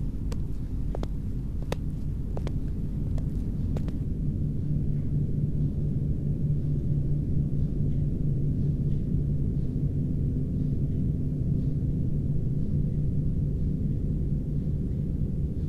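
A low, steady rumbling drone with a deep hum that swells after about four seconds. A few sharp clicks sound in the first four seconds.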